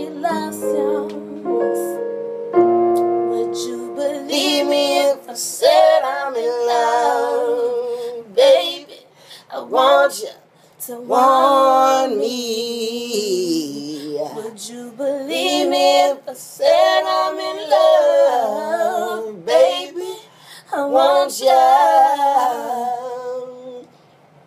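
A woman singing long, melismatic R&B-style runs with a wavering vibrato. In the first few seconds, held keyboard-like notes sound beneath the voice.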